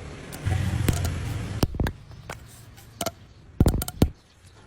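Hands working plastic pipe: a short rushing, rumbling noise, then several sharp knocks and clicks.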